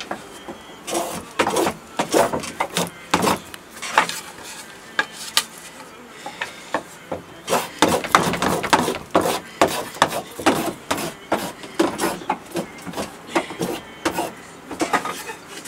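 A small hand plane shaves the edge of a wooden serving board in short rasping strokes, about two a second. The strokes thin out for a moment around five to seven seconds in.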